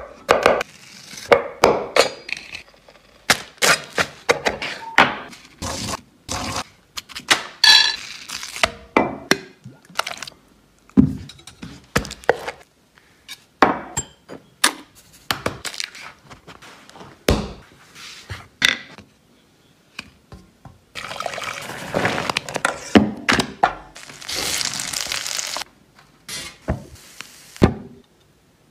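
Close-up kitchen food-prep sounds: a quick, irregular series of knocks, taps and clicks on a wooden cutting board and a glass jar with a glass lid. About three quarters of the way through there are a few seconds of continuous rustling noise.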